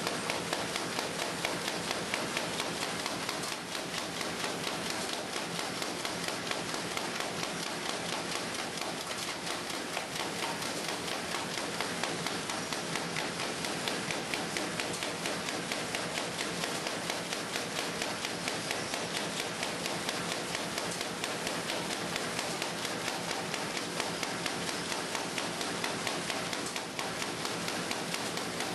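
Pad-O-Matic 360W automatic tray padding line running at speed: a steady, dense clatter of rapid clicks and taps.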